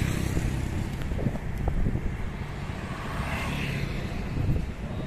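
A motor vehicle running, a steady low rumble with road noise, and wind on the microphone.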